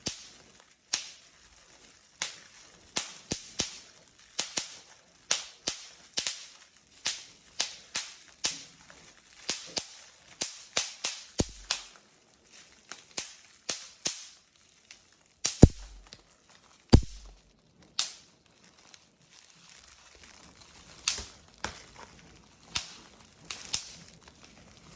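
Bubble wrap bubbles popping one after another: sharp single pops at an uneven pace, about one or two a second, with two louder pops about two-thirds of the way through.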